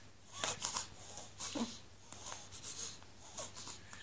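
Three-week-old newborn baby making noises in its sleep: a run of short, breathy snuffles and squeaks, the loudest breathy ones about half a second in, and a squeak that drops in pitch about a second and a half in.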